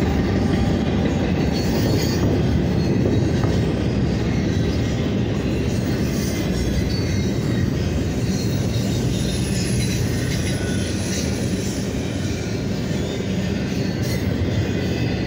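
Union Pacific double-stack container train passing close by: steady rolling rumble of the well cars' steel wheels on the rails, with faint high-pitched wheel squeal now and then.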